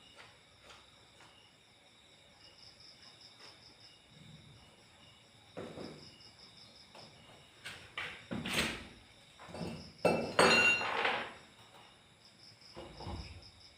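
Crickets chirping steadily in a high, pulsing trill, while a series of irregular knocks and clattering of hard objects comes in about halfway through, loudest around ten seconds in, as of parts and tools being handled during assembly work.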